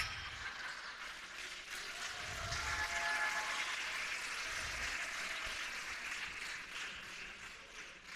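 Theatre audience laughing and clapping after a joke, swelling about two to three seconds in and slowly dying away.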